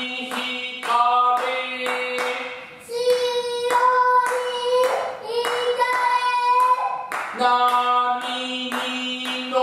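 Children's voices chanting Hōshō-school Noh utai in long, wavering held notes, with a lower voice beneath at times. Sharp beats strike several times a second, keeping time for the chant.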